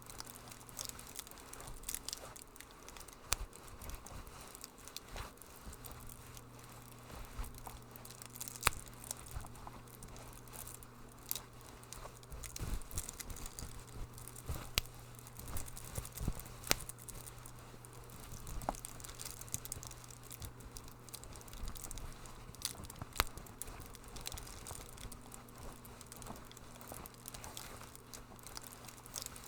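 Wood fire in a fireplace crackling, with irregular small ticks and several louder sharp pops, over a steady low hum.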